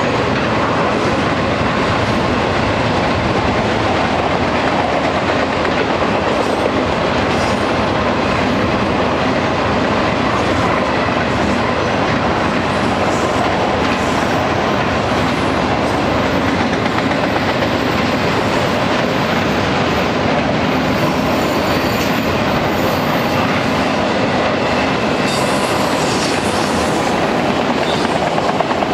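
Long BNSF auto-rack freight train rolling past, a steady rumble and clatter of its car wheels on the rails.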